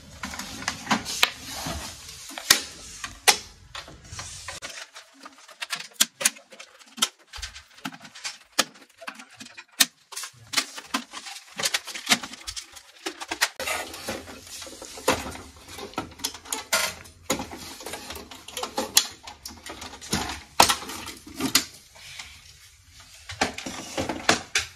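Irregular plastic clicks, taps and clattering as an HP DeskJet Ink Advantage inkjet printer is unscrewed and its plastic casing is handled and lifted off.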